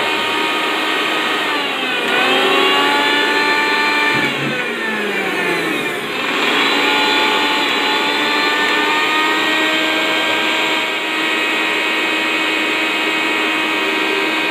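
Electric mixer grinder running, its steel jar crushing ginger and garlic: a loud, steady motor whine that sags in pitch and picks up again twice in the first six seconds as it works through the pieces, then runs evenly.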